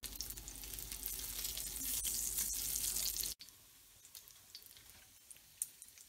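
Bacon strips sizzling as they render their fat in an enamelled Dutch oven. The sizzle cuts off suddenly a little past halfway, and a much fainter sizzle with a few small ticks follows.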